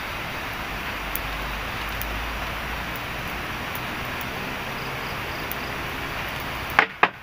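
Small campfire of dry sticks and palm-leaf stalks burning, with a steady rushing hiss and occasional faint crackles. Near the end come a few sharp knocks in quick succession.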